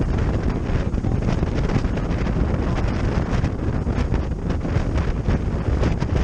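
Wind buffeting the microphone as an aluminum fishing boat runs under power, with steady engine and water noise underneath.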